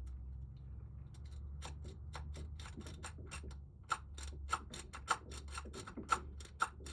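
Rake pick being pushed in and out of a pin tumbler lock held under tension, a run of sharp metallic clicks at about three to four a second as it strikes the pins, starting about a second and a half in.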